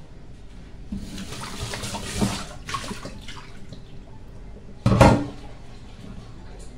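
Water running from a kitchen tap for a couple of seconds, in uneven spurts, then a single sharp knock about five seconds in.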